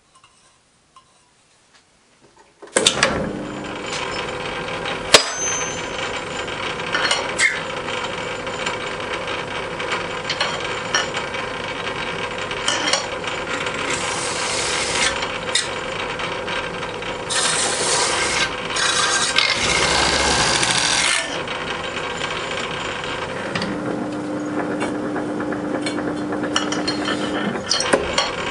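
A Myford lathe starts up about three seconds in and runs steadily, spinning a wire brush wheel in the chuck. A part held in the tool post is fed against the brush several times, giving loud rasping stretches over the running hum.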